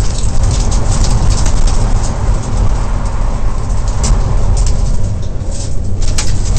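In-cabin sound of a Mitsubishi Lancer Evolution VII rally car driven hard on gravel: the turbocharged four-cylinder engine runs under a loud, steady road rumble. Loose stones crackle and rattle against the underside throughout.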